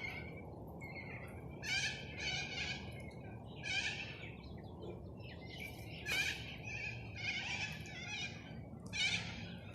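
Parrots squawking: a string of short, harsh calls, about a dozen in ten seconds, some overlapping.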